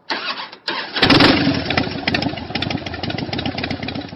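An engine being started: two short bursts, then it catches about a second in and runs with a rapid, uneven firing beat that slowly fades.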